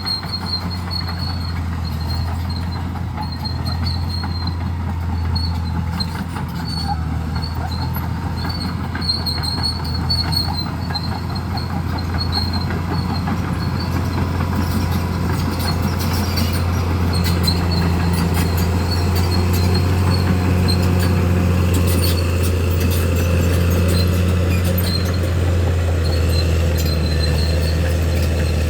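Crawler bulldozer's diesel engine running steadily under load while it pushes through bush, getting a little louder after the middle. A high squeak comes and goes over it, with scattered clicks and cracks.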